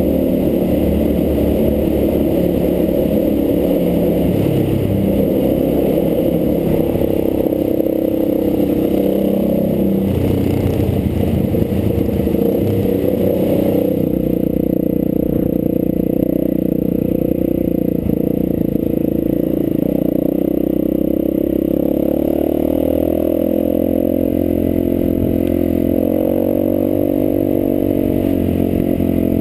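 Enduro motorcycle's engine running under way as it is ridden, loud and steady, its pitch shifting up and down with the throttle.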